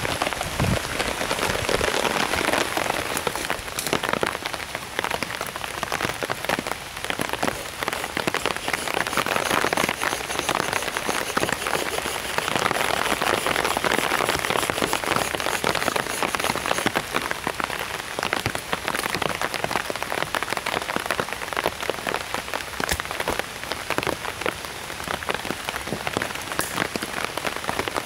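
Steady rain falling on a survival blanket shelter, a dense, even patter of many drops.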